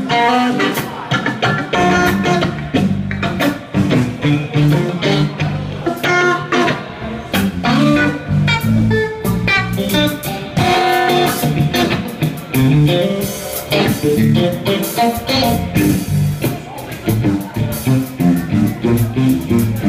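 Live blues band playing: two electric guitars over electric bass and a drum kit.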